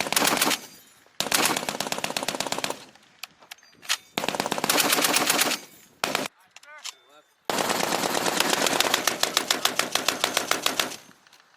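M2A1 .50-calibre heavy machine gun firing a series of bursts of rapid, evenly spaced shots. A short burst ends just after the start, then come bursts of about a second and a half and about one second, a brief one, and a long burst of about three and a half seconds near the end.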